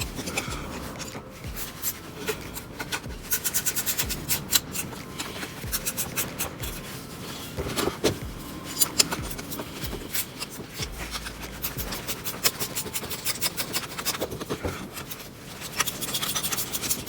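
Hand work on the GT-R's intake parts: plastic and metal pieces rubbing and scraping against each other, with many small irregular clicks, as the air flow meters and air cleaner box are refitted.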